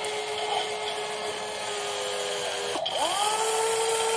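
Electric motors and gear drives of a WLtoys 16800 RC metal excavator whining as the model works. One steady whine cuts off abruptly near three seconds in, and at once another starts, rising quickly in pitch and then holding steady while the upper body swings round.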